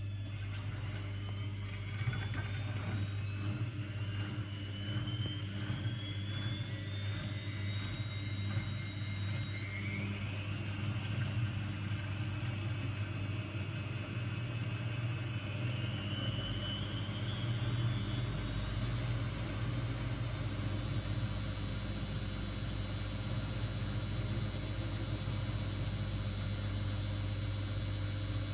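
AEG washing machine spinning up: the motor's whine rises in pitch, steps up quickly about a third of the way in and again past halfway, then holds steady at full spin speed over a constant low hum.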